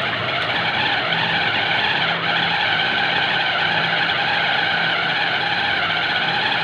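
Small press-top electric mini chopper running steadily at full speed, its blades grinding raw chicken into mince. The motor starts suddenly as the top is pressed down and holds an even, loud whir.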